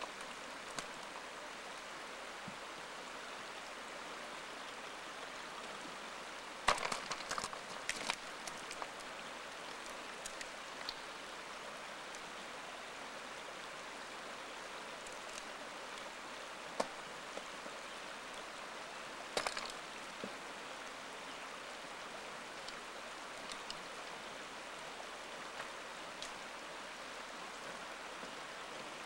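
Steady rush of a shallow creek running over a gravel and cobble bed. A few short sharp clicks break through it, the loudest about seven seconds in and again near twenty seconds.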